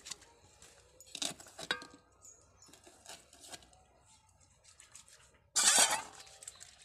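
A steel bowl clinking lightly a few times as prawns are washed by hand in it, then a brief splash of water near the end, the loudest sound.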